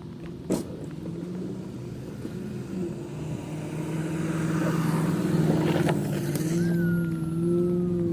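A vehicle engine running under steady load, growing louder through the middle, with a sharp click about half a second in and a thin whine that falls slowly in pitch near the end.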